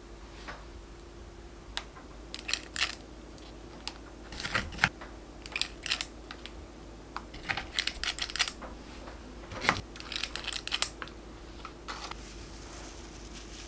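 Frozen mango and passion fruit puree being scraped out of its tub and dropped in icy chunks into a glass measuring cup: irregular clusters of crisp clicks and short scrapes.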